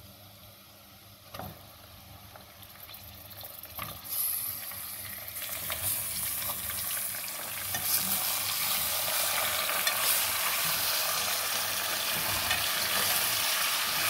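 Raw chicken pieces frying in hot oil with browned onions in a metal pot, sizzling loudly from about four seconds in while a ladle stirs them. Two knocks come before the sizzle starts.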